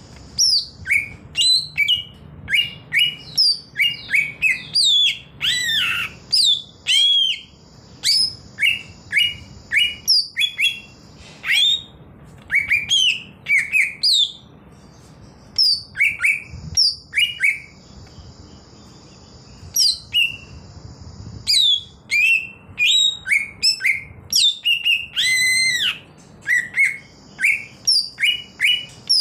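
A caged male cucak ijo (green leafbird) singing a varied, wild-style 'ngalas' song: quick runs of short sharp chirps and whistled notes, with a short lull a little past the middle.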